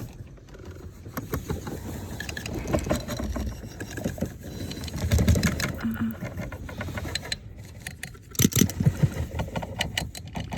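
Irregular knocking, clicking and rattling as a blower motor is handled and pushed into its housing under the dashboard, with louder clusters of knocks about halfway through and again near the end.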